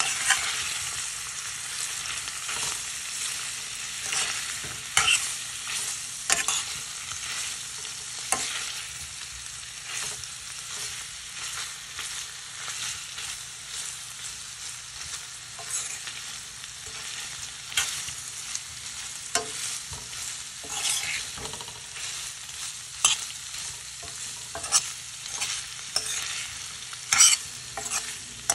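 Diced precooked chicken sizzling in oil in a stainless steel skillet as it is reheated, with a utensil stirring it and clicking and scraping against the pan at irregular moments, loudest about 5, 6 and 27 seconds in.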